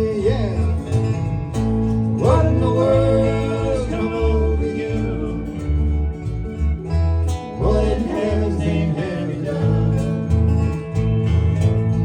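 Country band playing an instrumental break: lap steel guitar lead with sliding notes that swoop up several times, over strummed guitar and a steady bass line.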